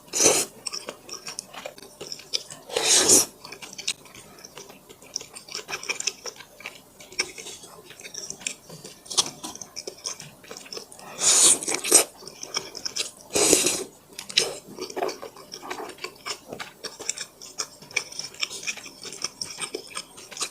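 Close-up chewing of dumplings, with small wet, crackly mouth sounds running throughout. Four louder half-second noises break in, at the start, about three seconds in, and twice between eleven and fourteen seconds in.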